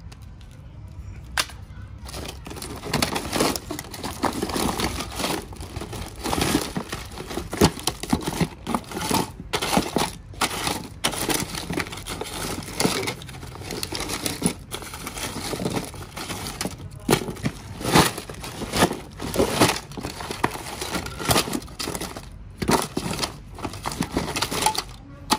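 Hands rummaging through a cardboard box of scrap phone parts: broken plastic and metal phone housings knocking together and plastic bags crinkling, a constant irregular clatter and rustle that starts about a second and a half in.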